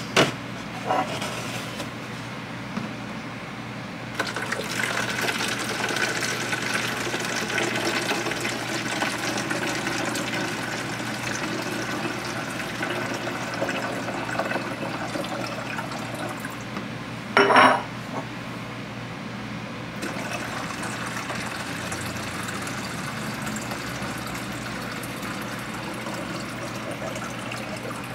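Water running or pouring steadily, starting about four seconds in, with one brief louder noise a little past the middle.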